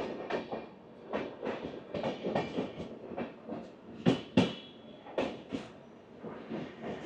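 Indian Railways passenger train rolling at speed, its wheels clacking over rail joints in pairs, about one pair a second, over a steady rumble. The loudest pair of clacks comes about four seconds in.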